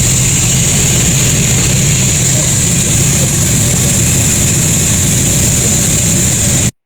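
Sawmill machinery running steadily: a constant low hum under a high, even hiss. It cuts out abruptly for a split second near the end.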